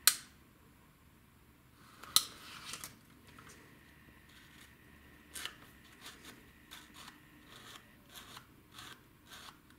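Small plastic and metal clicks and rubbing as a Digital Compact Cassette's metal slider and spring are worked by hand. A sharp click about two seconds in is the click that tells the slider spring is positioned correctly, followed later by several lighter clicks.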